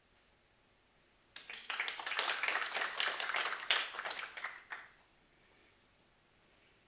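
Brief applause from a small audience, with separate hand claps audible, starting about a second and a half in and dying away after about three and a half seconds.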